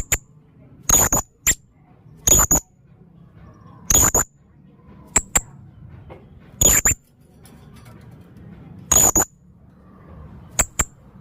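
Male blue-crowned hanging parrot calling: short, sharp, high-pitched notes repeated every second or two, some in quick pairs, about nine in all.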